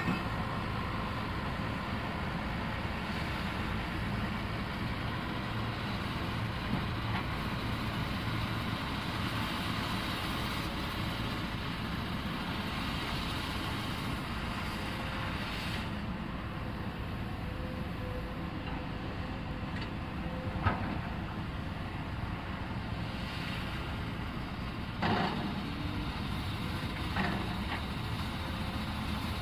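Excavator's diesel engine running steadily, with a few short knocks about two-thirds of the way through and again near the end.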